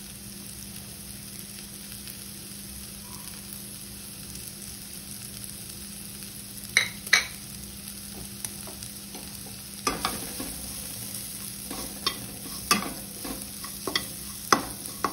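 Masala frying in a kadai with a steady sizzle. From about seven seconds in, a spatula clacks and scrapes against the pan again and again as the mixture is stirred.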